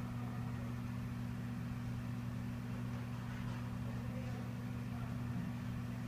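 Microwave oven running with a steady low hum.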